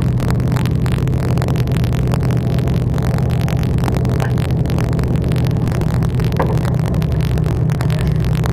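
Steady low drone of a fishing boat's engine running, with a few small clicks and knocks from handling gear on deck.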